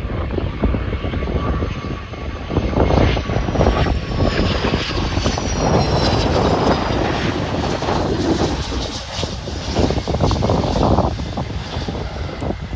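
Airliner engines of a passing aircraft, with a faint high whine that falls slowly in pitch, heard under gusty wind buffeting the microphone.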